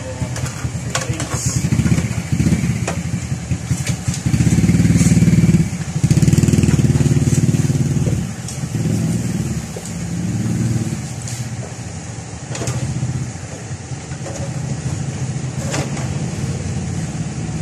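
Motorcycle engine running and revved in several surges, loudest about four to eight seconds in, with a few sharp clicks over it.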